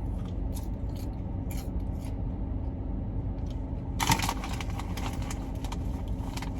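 Steady low hum inside a parked car, with scattered small clicks and handling noises and a short, louder rustling burst about four seconds in.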